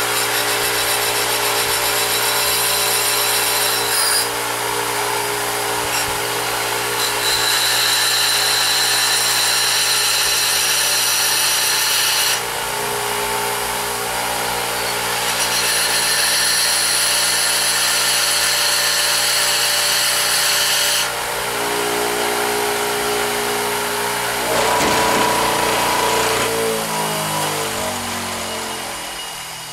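Bench grinder running steadily while a tungsten electrode, spun in a drill, is held against the grinding wheel in several stretches, each bringing a high grinding whine. Near the end the grinder winds down with a falling pitch.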